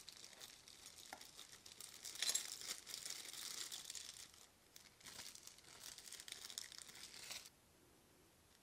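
Thin clear plastic wrapping crinkling in bursts as small bags are handled and pulled open, stopping about seven and a half seconds in.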